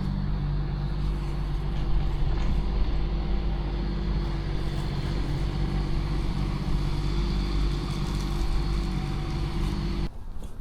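Digger's engine running steadily at a constant pitch while grading the soil flat; the sound cuts off suddenly near the end.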